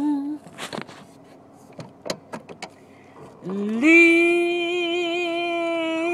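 A woman singing a gospel hymn unaccompanied. The end of a held note comes first, then a pause with a breath and a few small clicks, and from about three and a half seconds in she holds one long note with slight vibrato.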